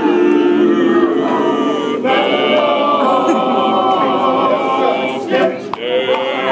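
Men's vocal group singing a cappella in harmony, holding long chords, with a change of chord about two seconds in.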